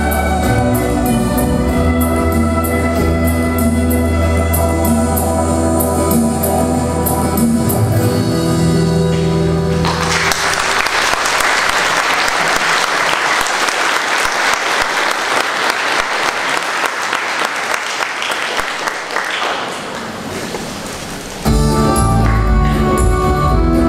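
Instrumental music from a children's recorder ensemble ends about ten seconds in, and audience applause follows, thinning out over several seconds. Another piece of music starts abruptly near the end.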